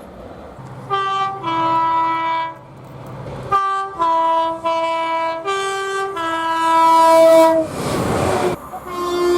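Two-tone train horn sounding a series of blasts, switching back and forth between a high note and a low note. About eight seconds in comes a loud, brief rushing noise, then the horn sounds again.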